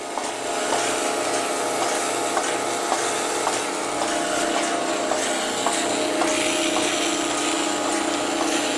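Milking machine running on a cow: a steady vacuum hiss and hum, with the pulsator clicking regularly, about twice a second, as the teat cups draw milk.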